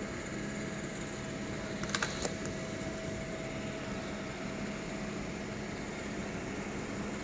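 TIG welding arc on sanitary stainless pipe, a steady hiss and hum with a few clicks about two seconds in.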